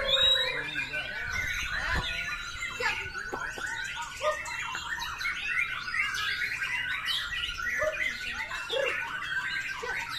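Several caged white-rumped shamas (murai batu) singing together, a dense, unbroken run of rapid whistles and chirps overlapping one another.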